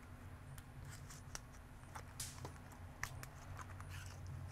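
Faint small clicks and scrapes of a pry tool working around the edge of a Samsung Galaxy S7's heat-softened back glass, with one brief rasping scrape about two seconds in, over a low steady hum.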